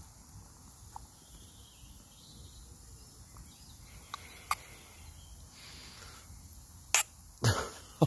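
A knife working in a camping frying pan, spreading chopped garlic and onion over a raw steak: a few faint, sharp clicks of metal on metal over quiet background. Near the end comes a short, louder, breathy burst like a cough.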